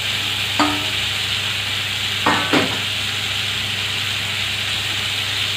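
Moringa drumsticks, potatoes and tomatoes sizzling steadily in hot oil in a steel karahi, with a few brief clinks about half a second in and twice around two and a half seconds in, as the metal bowl of fried potatoes is emptied into the pan.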